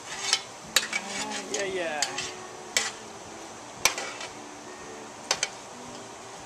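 Metal spoon stirring chicken pieces and onions in an aluminium pot, knocking against the pot about eight times at irregular intervals, over a steady sizzle of the food frying in hot grease. A short wavering pitched sound, like a voice, comes about a second and a half in.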